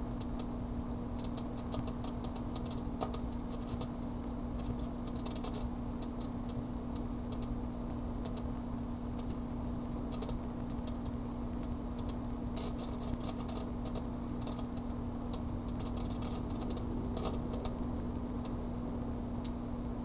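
Microwave oven running with a steady hum while crumpled aluminium foil inside arcs, giving irregular bursts of crackling, snapping clicks that come and go.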